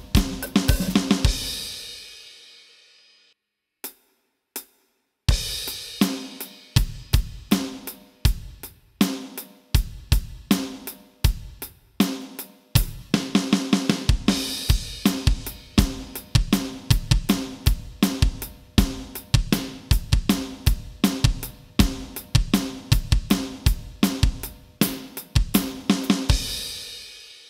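Electronic drum kit playing a double-time rock groove: steady eighth-note hi-hat with snare and bass drum. The groove stops and rings away about two seconds in, pauses for about three seconds with two faint clicks, starts again and runs evenly, then ends with a cymbal ringing out near the end.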